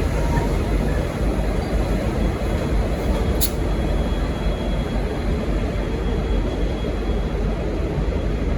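V/Line N class diesel locomotive running with a steady low rumble, no horn sounding; a single short click about three and a half seconds in.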